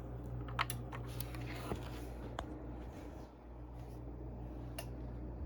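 A handful of short, light clicks scattered over a steady low electrical hum.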